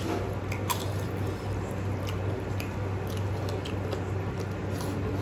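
Eating by hand: chewing, and fingers squishing rice and daal together on steel plates, with scattered short clicks.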